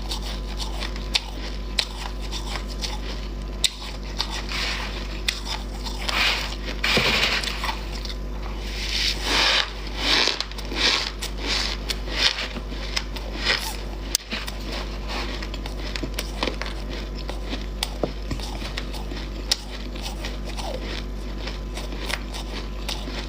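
Chunks of freezer frost bitten and chewed close to the microphone: sharp crunches and crackles, densest from about four to fourteen seconds in, then scattered single crunches.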